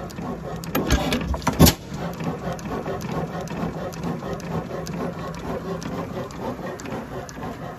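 1903 Columbus 8 hp camstopper hit-and-miss engine running, with a steady rhythmic mechanical clatter. One loud firing bang comes about a second and a half in.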